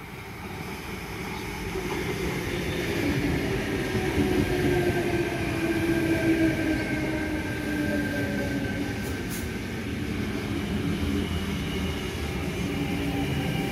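Sydney Trains Tangara double-deck electric train running along the platform. It grows louder over the first few seconds into a steady rumble of wheels on rail, with a motor whine that slowly falls in pitch as the carriages go by.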